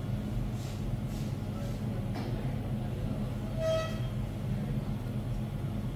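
Steady low hum of a COF bonding machine running, with one short electronic beep a little past halfway.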